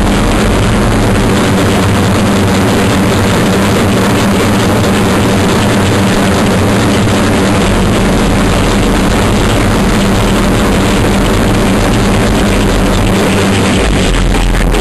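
Loud, heavily distorted noise blasted at full volume into Ventrilo voice chat as mic spam, a steady roar-like wall of sound that never drops in level.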